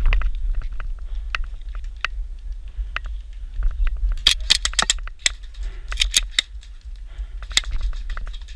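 Airsoft guns firing during a game: scattered sharp snaps, with two quick rapid-fire clusters about four and six seconds in, over a steady low rumble.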